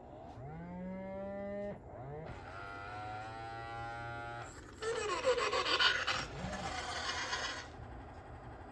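Mattel D-Rex robotic dinosaur toy playing its electronic dinosaur calls through its speaker: two low moaning calls, the first rising in pitch, then a louder, harsher rasping call.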